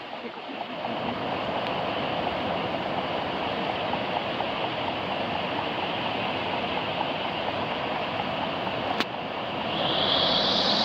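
Passenger hovercraft sitting on its pad with its fans and ducted propellers running: a steady rushing noise that grows over the first second. Near the end it gets louder and takes on a higher hiss as the craft powers up.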